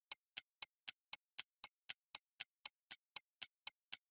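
Clock-ticking sound effect: steady, quiet ticks at about four a second, a thinking-time cue for working out the problem.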